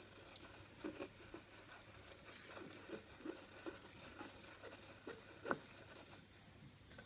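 Wooden burnishing spoon rubbed over the back of paper laid on an inked woodblock: faint scraping and rustling with irregular soft ticks as the spoon moves.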